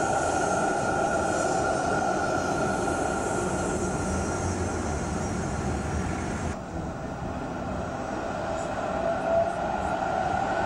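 Articulated electric street tram running along street track and pulling away. About two-thirds of the way through, the sound cuts to another tram approaching along the rails.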